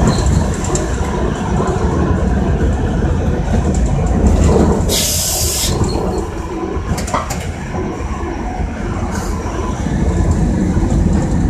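Iyotetsu Moha 50 streetcar running on street track, heard from the driver's cab: a steady low rumble of the car and its wheels, with a short hiss of air about five seconds in and a fainter one a few seconds later.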